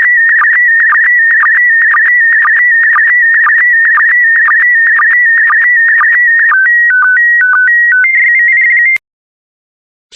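PD120 slow-scan TV image signal: a warbling whistle around 2 kHz that dips briefly about twice a second at each line sync pulse. About six seconds in it changes to a few stepped tones and then a steady high tone, which cuts off suddenly just before the end as the transmission finishes.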